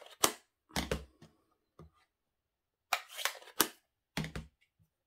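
Plastic ink-pad lids snapping shut and the pads being handled and set down on the table: a series of sharp clicks and taps in several short clusters.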